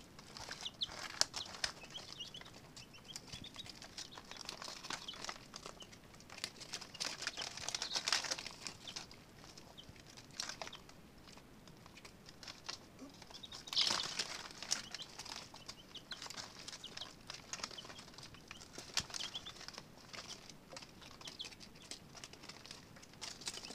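Baby chicks scurrying and scratching over pine shavings and a crinkling paper lining, a busy rustle of small patters and crackles with louder flurries about eight and fourteen seconds in, and a few soft peeps.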